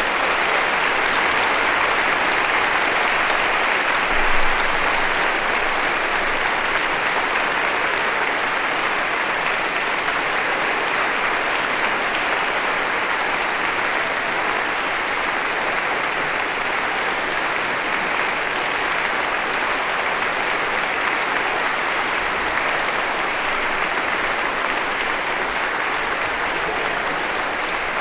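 Crowd applauding: many people clapping in a dense, steady wash, with a brief louder swell about four seconds in.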